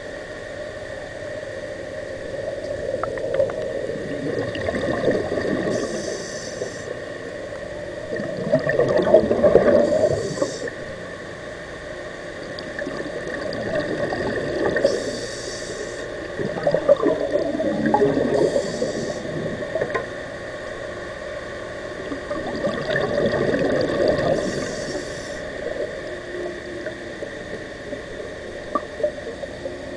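A diver breathing underwater through a breathing regulator: a short hiss on each inhale and a burst of bubbling on each exhale, every few seconds, over a steady faint hum.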